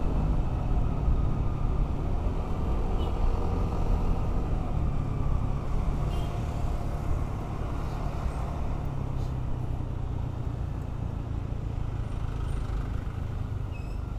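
Ride-along sound of a motorcycle in city traffic: its engine running under a steady low rush of wind and road noise, the sound easing off gradually as the bike slows behind cars.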